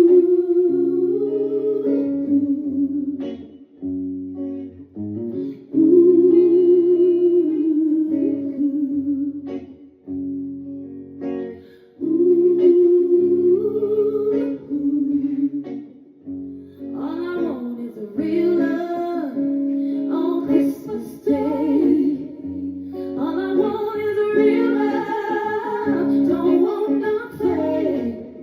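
A live band playing a slow song, guitar and bass under a singer holding long, wavering notes.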